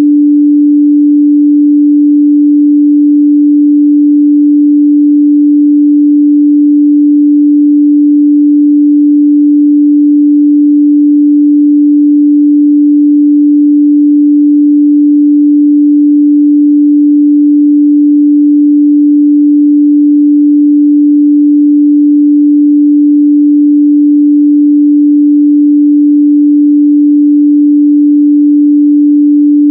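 A steady 293 Hz sine-wave test tone, a single pure pitch held without change, loud.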